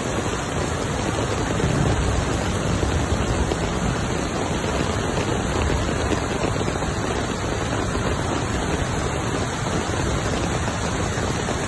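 Flash-flood torrent of muddy water rushing through a wadi, a steady loud rushing.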